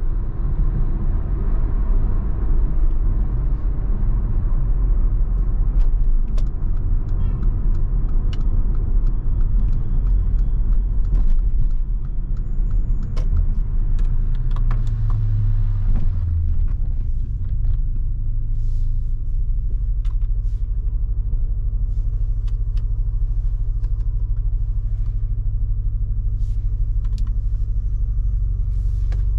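Mercedes-AMG GLA 45's 2.0-litre turbocharged four-cylinder engine and tyres while driving: a louder engine-and-road rumble for the first dozen seconds, then it settles to a quieter, steady low engine hum from about halfway. A few faint clicks come through.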